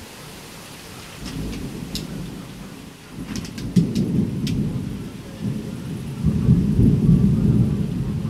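Thunder rumbling low, building about a second in and swelling twice, loudest near the end, with a few sharp ticks in the first half.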